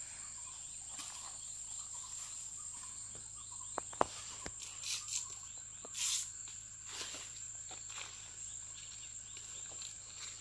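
Large broad leaves and stems rustling and crackling as they are handled and bundled, with a few sharp clicks around four seconds in. Behind it runs a steady high-pitched insect drone.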